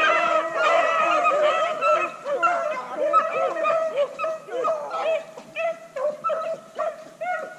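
A pack of beagles baying on a rabbit's trail, many voices overlapping in a dense chorus that thins to separate barks after about three seconds. The cry means the dogs are running the rabbit by scent.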